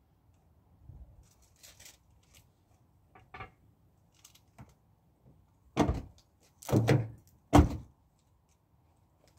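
A few faint clicks, then three loud, dull thumps in quick succession past the middle.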